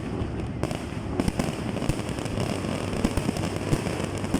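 Fireworks display: a dense, continuous run of crackling pops and small bangs.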